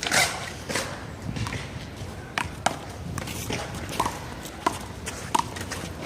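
A one-wall handball rally: irregular sharp slaps as the small rubber ball is struck by hand, hits the wall and bounces on the court, about seven in all. A few of them carry a short ringing ping.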